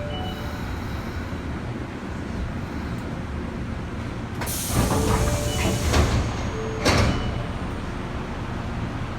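Osaka Metro 10 series subway car's doors working: a steady low hum of the standing train, then about four seconds in a loud rush of air with short chime beeps, ending in a sharp thud about two and a half seconds later as the doors reach the end of their travel.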